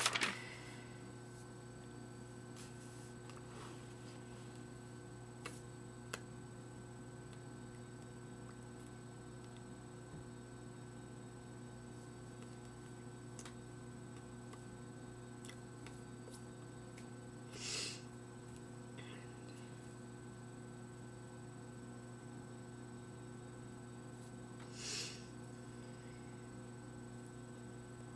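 Steady electrical hum made of several constant tones. Two faint clicks come early on, and two short soft hissy noises come in the second half.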